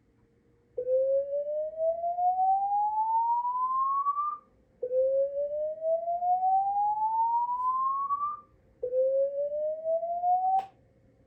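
Bosch Praesideo public address system sounding a slow-whoop evacuation alarm tone: three long rising sweeps, each about three and a half seconds with a short pause between. The third sweep is cut short with a click near the end.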